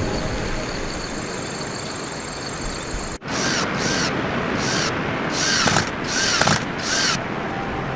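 Steady hiss that cuts off suddenly about three seconds in, then a hand saw cutting wood in about six short scraping strokes.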